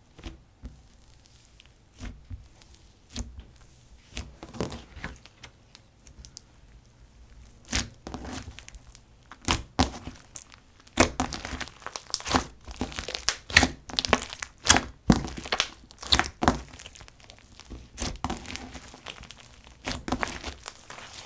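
Slime being worked by hand: irregular crackles, pops and tearing sounds, sparse at first and coming thick and fast from about halfway through.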